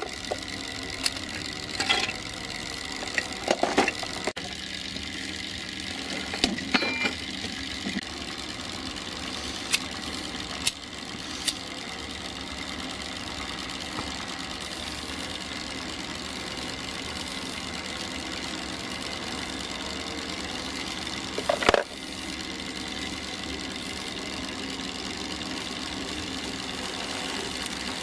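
Clicks and knocks of kindling and wood-wool firelighters being handled while lighting up a miniature steam traction engine, with one louder sharp knock well into the sound, over a steady mechanical hum.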